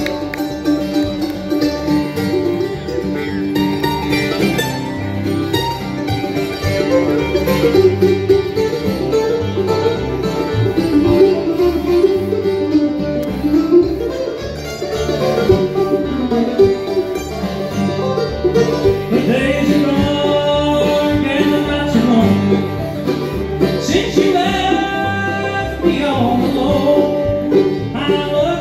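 Live bluegrass band of banjo, mandolin, upright bass and acoustic guitar playing an up-tempo tune, with banjo rolls over a walking bass. Singing joins about two-thirds of the way through.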